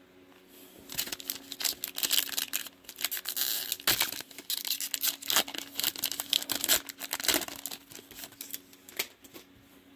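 Prizm football trading card pack wrapper being torn open and crinkled, a dense run of irregular crackles and rips that starts about a second in and dies down near the end.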